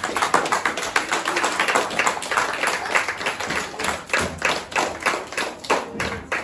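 An audience applauding: many hands clapping in a dense, uneven patter.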